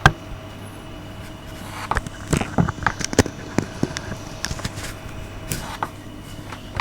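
Irregular clicks and knocks of parts and tools being handled while a TV power supply board is reassembled, over a steady low hum.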